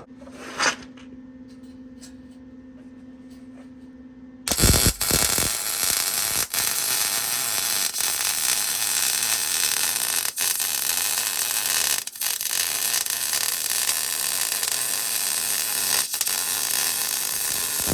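Steady low hum, then about four and a half seconds in an arc welder strikes up on an exhaust tip and runs a continuous crackling hiss, with a few brief breaks in the arc.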